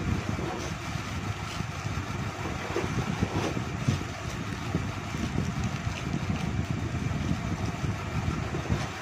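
Steady low rumbling of wind buffeting the microphone, with a few faint crinkles of plastic accessory bags being set down about three to four seconds in.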